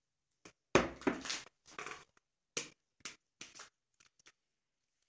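Dishes being handled on a kitchen counter: a dull knock just under a second in, then a string of short knocks and rustles as a plastic bowl of cucumber salad is lifted and the salad picked out by hand.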